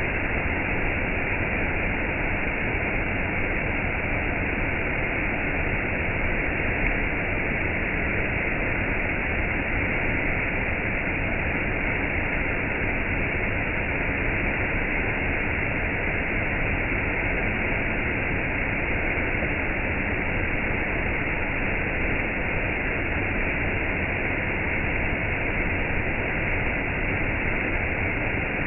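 Water of a stream or small waterfall rushing steadily, an even hiss that does not change.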